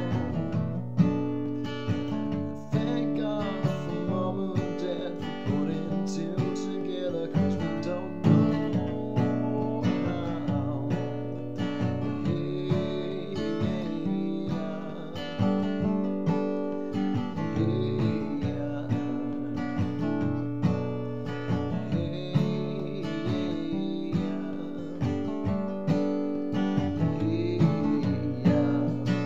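Acoustic guitar strummed in a steady rhythm, chords ringing on continuously.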